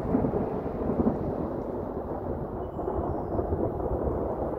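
Thunder rumbling low and continuous, swelling and easing without a sharp crack.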